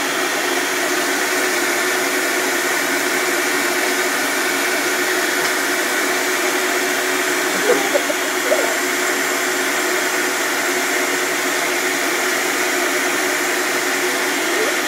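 Electric vacuum cleaner running steadily, a loud even whoosh with a constant hum under it.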